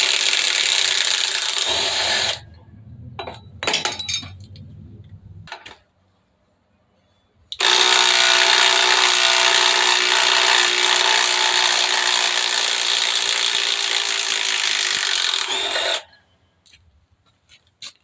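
Cordless impact driver hammering under load, a dense rattling run that stops about two seconds in. After a few clicks and a short silence it runs again for about eight seconds, starting about seven and a half seconds in and stopping sharply.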